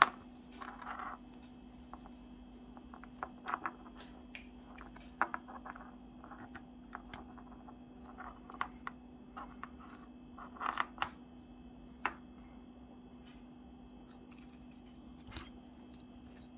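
Hands handling small electronic parts, wires and tape on a workbench cutting mat: scattered light clicks, taps and rustles at irregular intervals, over a faint steady low hum.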